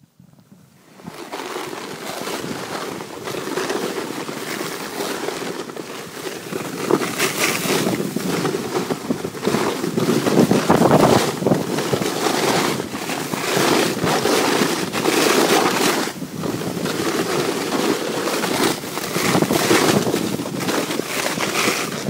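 A sled towed fast over snow: a steady rushing scrape of the sled on the snow, mixed with wind buffeting the microphone, starting about a second in and swelling and easing.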